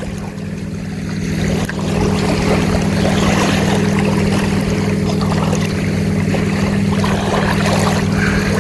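A boat motor running at a steady pitch, getting louder about two seconds in and then holding steady.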